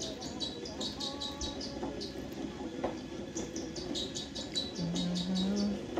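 Birds chirping in two quick runs of short high notes over a steady low background, with a brief low hum that steps up in pitch near the end.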